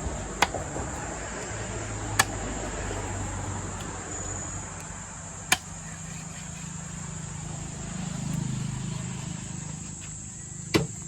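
Four sharp knocks a few seconds apart, over a steady high-pitched hiss and a low hum.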